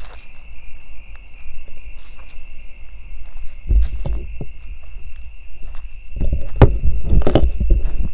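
Crickets chirring steadily in a night-time chorus at two high pitches. Close footsteps crunch and rustle over the trail, starting a little before the middle and growing louder and busier near the end.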